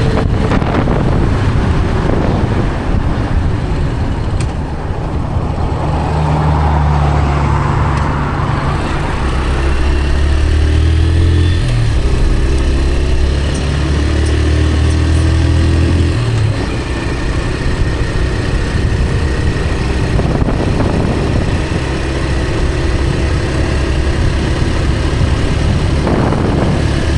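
Road vehicle driving along, steady engine note over road and wind noise; the engine pitch shifts about twelve seconds in and drops again a few seconds later.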